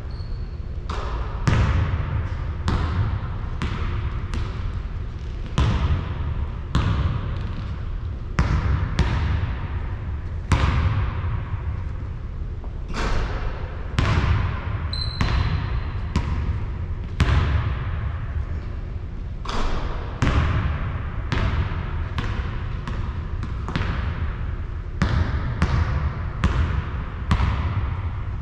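Basketball bouncing on a hard court, roughly one bounce a second and unevenly spaced, each bounce echoing. A short high squeak comes near the start and again about halfway through.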